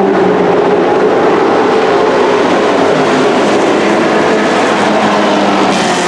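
Dirt-track race trucks running flat out around the oval, a loud, steady engine drone. Near the end it turns brighter and harsher as a truck goes by closer.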